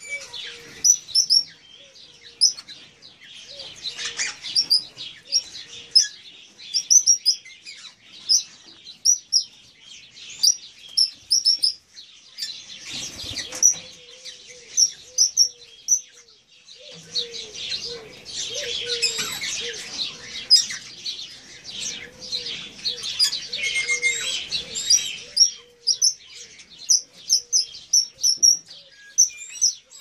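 Caged parrots calling in an aviary: short, high chirps repeat throughout, thickening into a stretch of dense, overlapping chatter in the second half.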